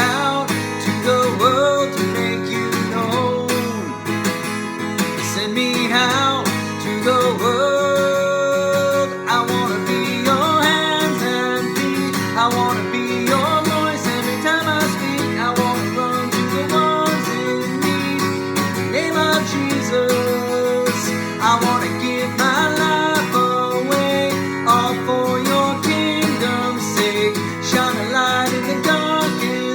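Worship song music led by strummed acoustic guitar, an instrumental passage between sung lines.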